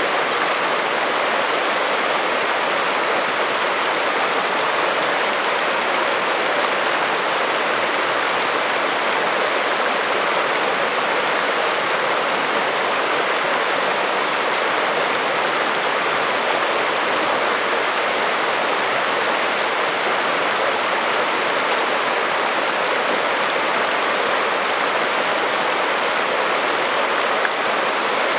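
Shallow mountain creek rushing over a rocky bed: a steady, unbroken rush of water.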